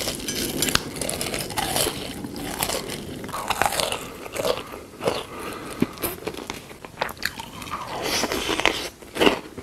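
Close-miked eating sounds: irregular crunchy bites and chewing.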